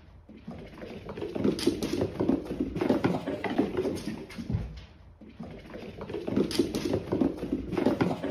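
A cat's paws pattering and thudding on a wooden floor as it runs, in two spells with a short lull between them.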